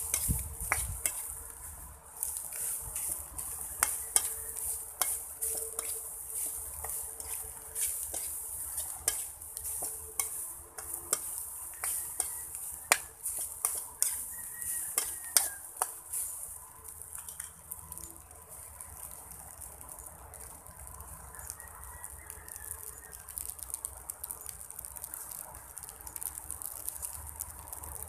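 Rice frying in a metal pan over a wood fire: a steady sizzle, with a metal utensil clinking and scraping against the pan as the rice is stirred. The stirring clicks come thick for the first sixteen seconds or so, then thin out while the sizzle goes on.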